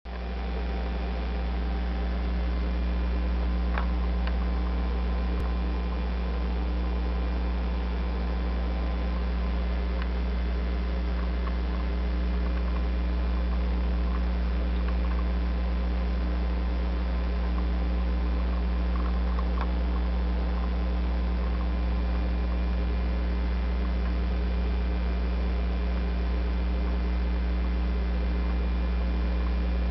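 Steady low electrical mains hum, with a few faint ticks.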